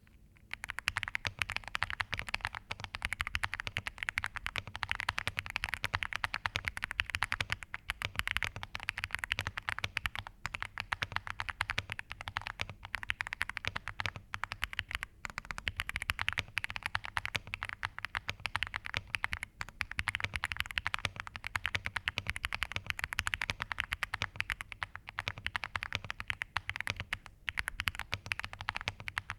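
Xinmeng M71 mechanical keyboard being typed on fast and without pause, a dense stream of key clicks with only brief breaks.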